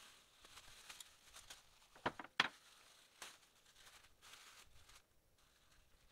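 A plastic food bag rustling and crinkling as hands open it around a marinated chicken, with two sharp clicks about two seconds in.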